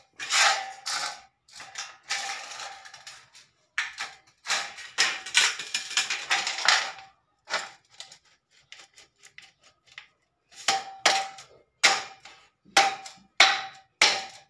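Thin steel metal furring channels scraping and rattling against each other as one is forced into the opened end of the other, the sheet metal ringing. In the last few seconds, a run of sharp metallic knocks, about two a second, each with the same ring.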